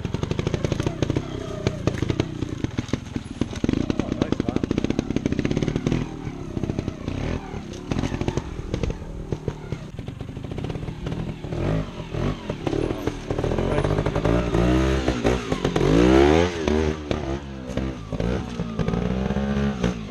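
Trials motorcycle engine working through a rocky section, the revs rising and falling again and again with short throttle blips, loudest about three quarters of the way through.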